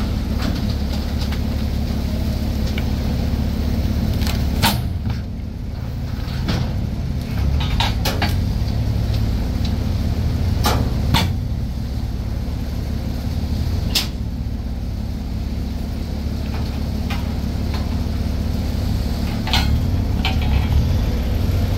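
Forklift engine running steadily under load, with several sharp knocks and clunks spread through it.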